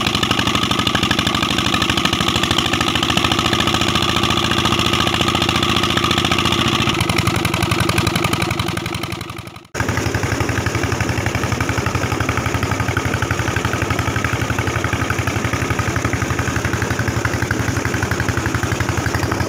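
Old Petter diesel engine running steadily with an even beat, driving an irrigation water pump. The sound dips out briefly about ten seconds in and comes back.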